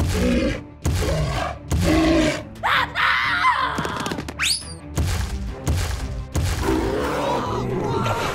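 Cartoon background music with sound effects: short thuds and a quick rising glide about four and a half seconds in.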